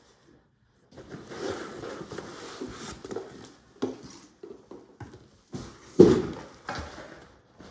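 Packaging rustling and being handled as a canvas backpack is unwrapped and lifted out, with a sharper knock about six seconds in.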